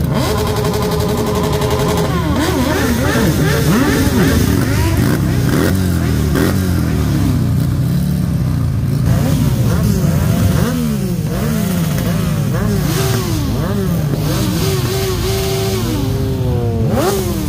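A crowd of motorcycle engines running, with throttles blipped over and over so the engine notes rise and fall again and again. A steady held note sounds for about the first two seconds.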